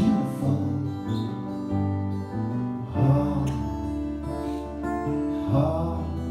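Instrumental passage of a live band performance, guitar-led, with sustained chords over a steady bass line and no singing.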